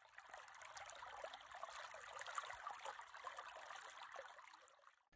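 Faint shallow stream flowing over stones: a steady watery rush dotted with many small trickles and splashes, fading in at the start and out near the end.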